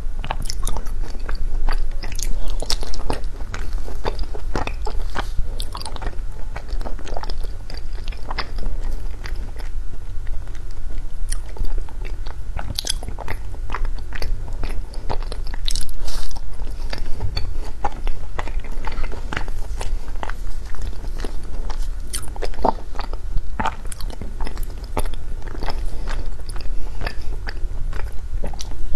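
Blocks of frozen matcha ice being bitten and chewed, cracking and crunching in many sharp, irregular crunches.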